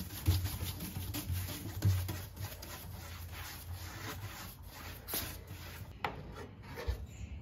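Sandpaper (220 grit) rubbing by hand over the painted wooden lid of a tool box in quick back-and-forth strokes, lightly scuffing the paint to give it a distressed look. The strokes die away about six seconds in.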